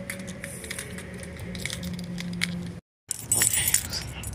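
Keys jangling in the hand, small metallic clicks and jingles over a faint low hum. The sound cuts out completely for a moment about three seconds in, then a brighter run of jangling follows.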